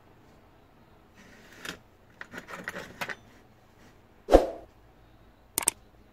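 Handling noise of a hot air rework gun's handpiece and cable on the bench: rustling with a run of light clicks and rattles, then a single knock about four seconds in and a quick double click near the end.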